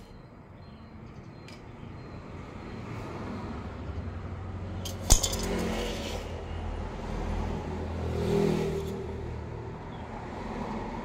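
A metal knife clinks sharply once onto a tiled floor about five seconds in. Under it, a passing road vehicle rumbles, swelling and fading, loudest about eight and a half seconds in.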